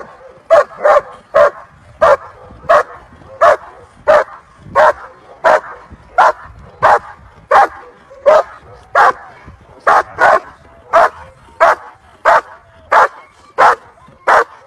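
German Shepherd dog barking sharply in a steady rhythm, about one and a half barks a second, at a protection helper in the blind: the bark-and-hold of Schutzhund/IGP protection work.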